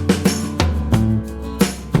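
Background music: guitar with bass and drums, a steady beat.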